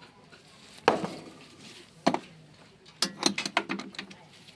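Metal hand tools knocking and clicking during car repair work: two sharp knocks about a second apart, then a quick run of clicks near the end.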